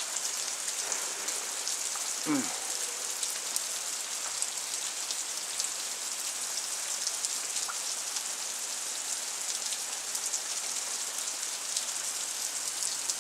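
Freezing rain pattering steadily on ice-coated surfaces, a dense hiss full of fine crackling ticks. A brief falling vocal exclamation comes about two seconds in.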